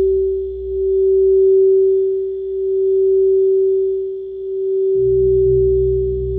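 A singing bowl holds one sustained pure tone that swells and fades in a slow wave about every two seconds. Under it a dehumidifier hums low; the hum fades out and comes back about five seconds in.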